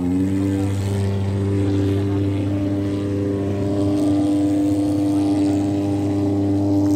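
Thermal fogging machine's pulse-jet engine running with a loud, steady buzzing drone while it pumps out insecticide fog against mosquitoes; its pitch rises slightly in the first second.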